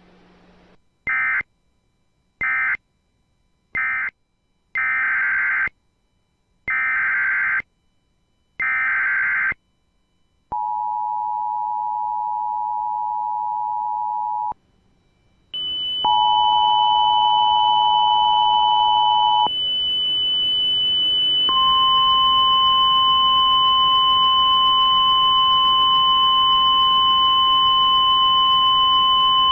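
Emergency Alert System tones on NOAA Weather Radio. First come three short buzzing bursts of SAME data (the end-of-message code), then three longer SAME header bursts, then the two-tone attention signal for about four seconds. About fifteen seconds in a steady high tone starts and carries on, joined briefly by the two-tone signal again and then by the long 1050 Hz weather radio warning alarm tone.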